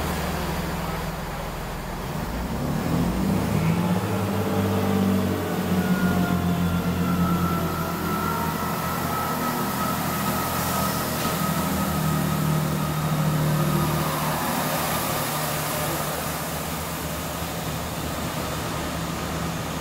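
Chiltern Railways Class 165 Turbo diesel multiple unit pulling out of the platform, its underfloor diesel engines climbing in note as it gathers speed a few seconds in, with a transmission whine that falls slowly as the train draws away.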